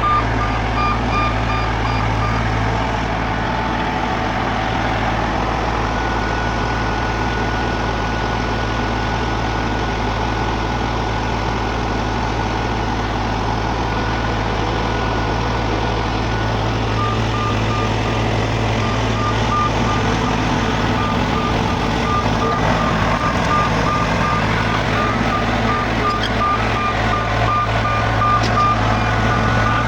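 Heavy diesel road-construction machinery, a Wirtgen W2000 cold milling machine at work, running steadily with a deep hum. A reversing alarm beeps rapidly at the start, stops, and beeps again from about halfway to the end.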